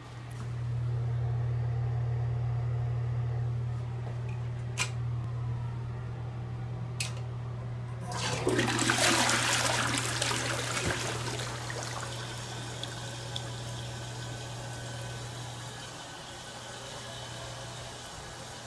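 American Standard open-rim toilet flushing about eight seconds in: a loud rush of water swirling through the bowl, easing into a quieter steady hiss. Before it, a steady low hum and two sharp clicks.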